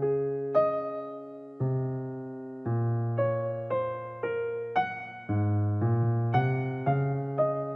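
Background music on a piano-sounding keyboard: a melody of struck notes, about two a second, over low chords that change every second or two.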